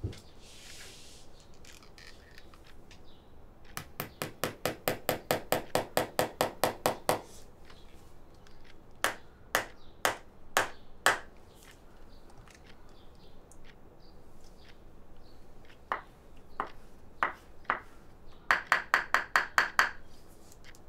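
Shoemaker tapping on a shoe with a small hand tool at the workbench: a fast run of about six or seven sharp taps a second, a few single taps in the middle, and another fast run near the end.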